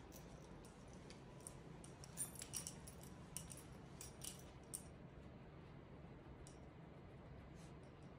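Faint light metallic clinks and ticks, a small cluster from about two seconds in to about five seconds in, from the Shiba Inu's leash and collar hardware jingling as the dog moves, over a low steady room hum.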